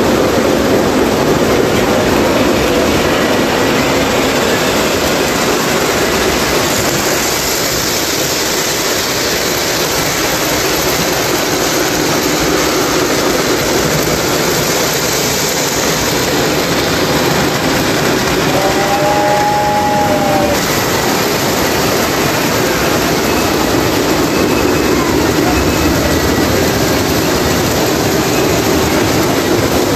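Three-rail O-gauge model trains running: a steady, loud rumble and rattle of wheels and motors on the metal track. A brief two-tone whistle sounds about two-thirds of the way through.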